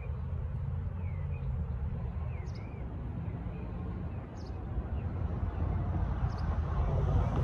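BNSF intermodal freight train rolling past with a steady low rumble that grows louder near the end, while small birds chirp.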